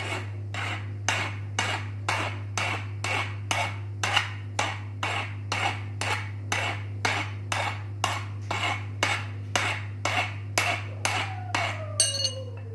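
Hammer tapping metal on metal at a ceiling fan's ball bearing, even strikes about two a second, to seat the new bearing. A steady low hum runs underneath.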